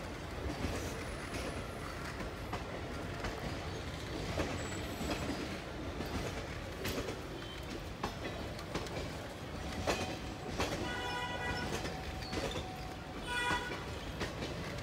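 Passenger train coaches rolling past close by: a steady rumble with wheels clicking over the rail joints. A brief high-pitched tone sounds twice near the end.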